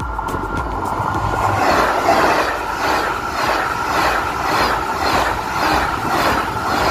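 TGV inOui Duplex double-deck high-speed train passing close by at speed: a loud rushing rolling noise that swells about a second and a half in, beating in regular pulses about twice a second as the wheelsets go by.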